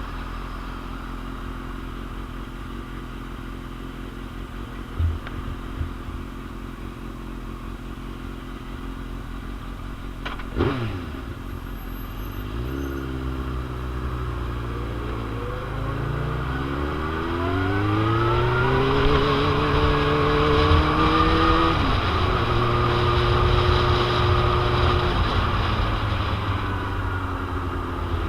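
2001 Suzuki GSX-R750's inline-four engine running at low revs, then revving up and rising in pitch as the bike accelerates, with one drop in pitch at a gear change. Wind noise rushes over the microphone and grows as the speed builds.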